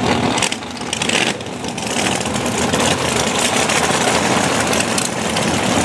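Drag racing car engine running loudly, a dense rough engine noise. The sound changes abruptly about half a second and about a second and a half in.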